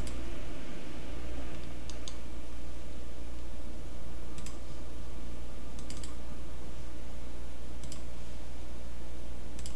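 Computer mouse clicks, single and double, every couple of seconds over a steady low hum.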